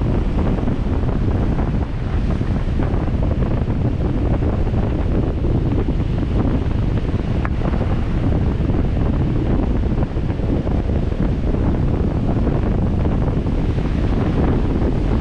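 Wind buffeting the microphone of a camera on a 4x4 moving along a beach: a steady, loud low rumble, with surf breaking underneath.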